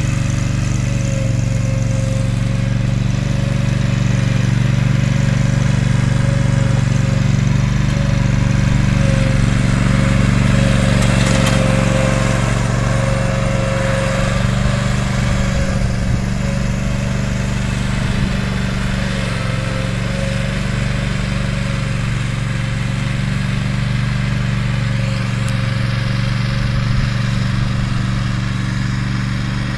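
Bad Boy zero-turn mower's engine running steadily as the mower drives along, towing a spot sprayer on its trailer cart.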